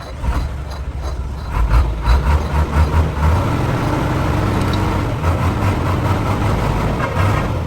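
Heavy truck diesel engine running with a low rumble. It surges unevenly for a couple of seconds, then settles into a steady run.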